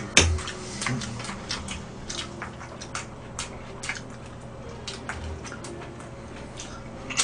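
Eating at a table: irregular chewing and mouth noises with scattered clicks of chopsticks and a fork against plates, the sharpest click about a quarter second in.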